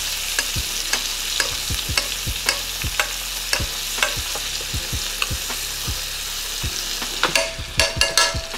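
Chicken breasts frying in melted butter in a skillet, a steady sizzle, with a metal spoon clicking against the pan about two to three times a second as the butter is spooned over the chicken, the clicks coming faster near the end.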